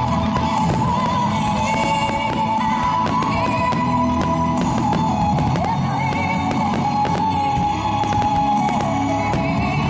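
Loud music playing for a fireworks show, with a held melody line, and many sharp firework bangs and crackles over it.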